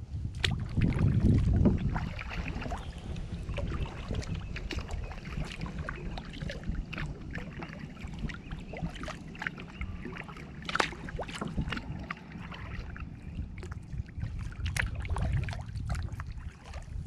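Kayak paddling: water splashing and dripping in many small, irregular splashes, over a low wind rumble on the microphone.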